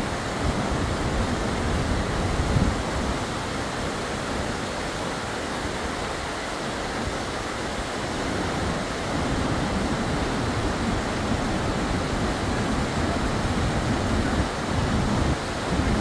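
Steady rushing roar of Yosemite Falls and the whitewater creek tumbling over boulders below it.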